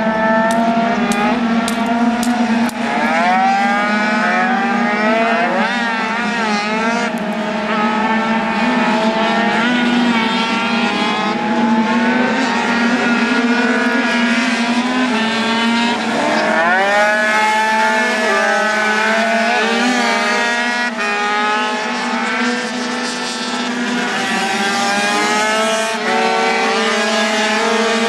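Several racing 50cc two-stroke scooter engines revving hard, their pitch rising and falling over and over as the riders shut off for corners and accelerate out. A steady drone runs underneath.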